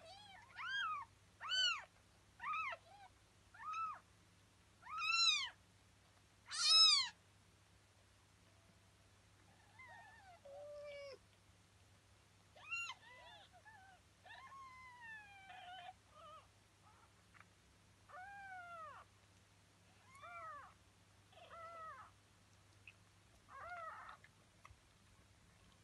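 Newborn kittens mewing: short, high-pitched mews that rise and fall, about one a second for the first seven seconds, the loudest near seven seconds in, then more scattered mews, some longer and sliding down in pitch.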